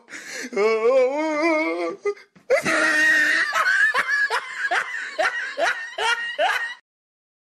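A person laughing hard. First comes a wavering, sing-song laugh, then after a brief gap a long run of quick ha's, about two or three a second. It cuts off suddenly near the end.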